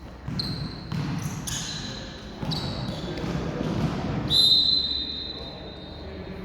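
Indoor volleyball play in a gym hall: several sharp ball hits, each followed by a short high squeal from sneakers on the court floor. A longer, louder high squeal comes about four seconds in, over the murmur of players' voices.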